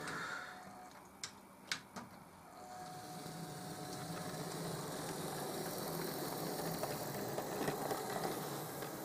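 Model diesel locomotive's small electric motor running as it hauls wagons along the track: a steady whirr with light rattling from wheels and wagons. It starts about two and a half seconds in and slowly grows louder, after a few sharp clicks.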